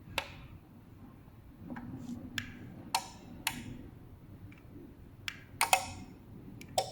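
Irregular sharp clicks, about eight of them, as the buttons of a garage door remote are pressed in turn and the opener clicks in response.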